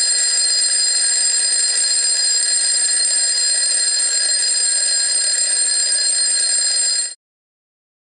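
Mechanical twin-bell alarm clock ringing continuously, its hammer rattling against the bells, then stopping abruptly about seven seconds in.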